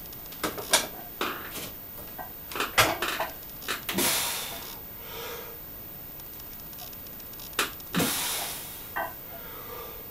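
A series of sharp clicks and knocks, several close together in the first four seconds, with two longer hissing bursts about four seconds in and eight seconds in that each fade over about a second.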